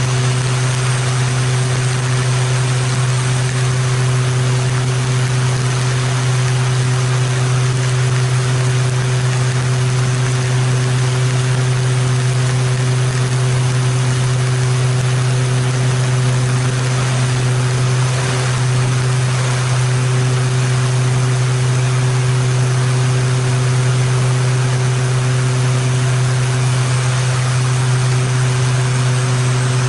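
Beechcraft King Air C90's twin PT6A turboprop engines and propellers running steadily in flight, a constant low hum with a few higher steady tones, under a haze of airflow rushing past the nose.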